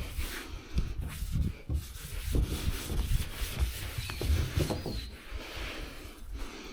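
Irregular rubbing strokes on a surface, with dull knocks between them, during paint preparation work.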